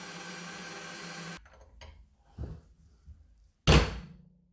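A steady machine hum that cuts off about a second and a half in. Near the end, a hammer strikes the steel screwdriver shank clamped in a vise once: a sharp metallic blow that rings briefly as it dies away.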